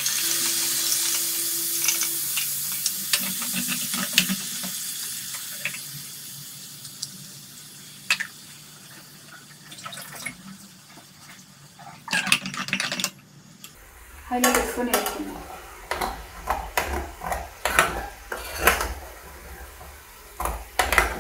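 Wet onion-tomato paste hitting hot oil in a steel frying pan, a loud sizzle that starts at once and slowly dies away over several seconds. Later a steel spoon stirs the paste, with repeated clinks and scrapes against the pan.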